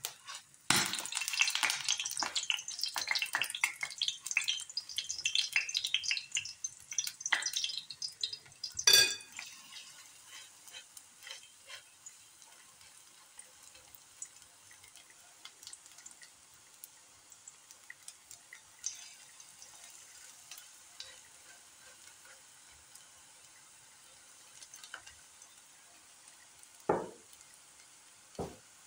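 Egg-and-onion pakora batter sizzling and crackling in hot frying oil as spoonfuls go into the pan. It is loudest and densest for the first eight seconds, then settles into a softer, steady sizzle. There is a sharp clink about nine seconds in and two short knocks near the end.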